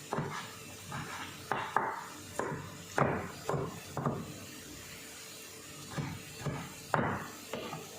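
A knife slicing a tomato on a cutting board: about a dozen irregular knocks of the blade meeting the board, pausing for a couple of seconds midway.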